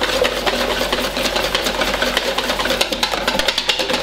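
Whisk beating thick beer batter of flour and beer in a stainless-steel mixing bowl: a fast, even run of clicks and scrapes as the wires strike the metal.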